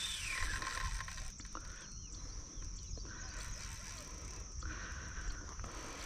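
Quiet riverbank ambience: insects droning at one steady high pitch over a low rumble on the microphone.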